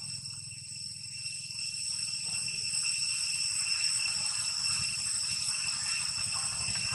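Steady high-pitched insect chorus droning without a break, over a continuous low rumble.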